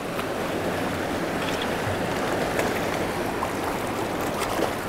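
Rushing river water running through rapids: a steady hiss, with a few faint ticks.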